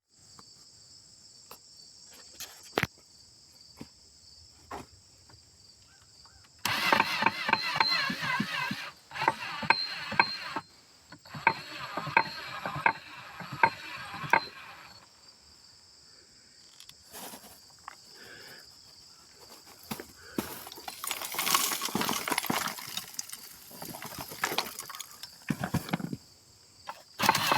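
Charcoal grinder crushing lumps of charcoal: rapid crunching and clicking in stretches of a few seconds, with scattered single clicks in between.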